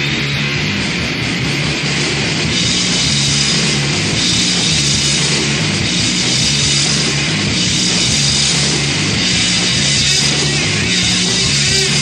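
Loud, dense live rock music with a raw, aggressive sound.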